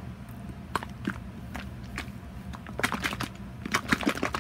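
Plastic squeeze bottle of acrylic paint mixed with Floetrol pouring medium, shaken hard by hand: irregular quick knocks and clatters, coming thicker in the second half.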